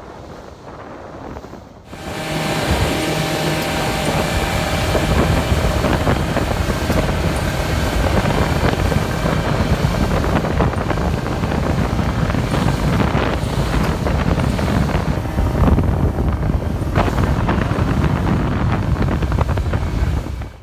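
Loud wind buffeting the microphone over a small boat's outboard motor running steadily as the boat moves; the noise jumps up suddenly about two seconds in.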